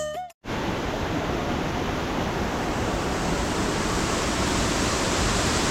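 Waterfall: falling water rushing steadily, after background music cuts off right at the start.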